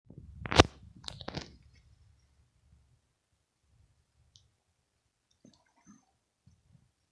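A few sharp clicks with a low rumble in the first second and a half, the loudest click about half a second in, then faint scattered ticks.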